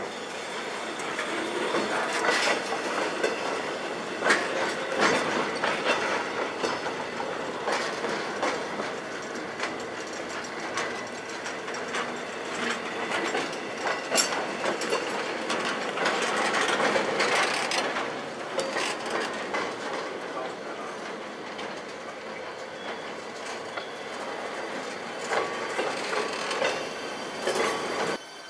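Freight train of flatcars carrying carnival trailers rolling past, steel wheels clacking and clicking irregularly on the rails over a steady rumble. The sound cuts off abruptly near the end.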